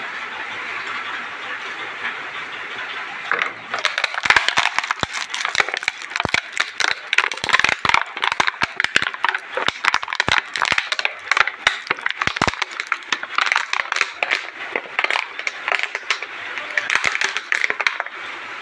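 Electric arc welding crackling irregularly with dense sharp cracks, starting about three and a half seconds in after a steady hiss.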